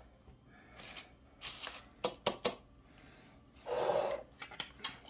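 A plastic spoon scooping food out of a plastic bag into a tortilla: soft crinkling of the bag and several sharp clicks of the spoon about two seconds in, with more rustling and clicks near the end.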